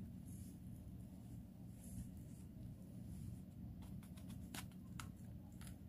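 Faint scraping and cutting of a small knife paring a bitter bolete mushroom, with a few light sharp clicks in the second half, over a steady low hum.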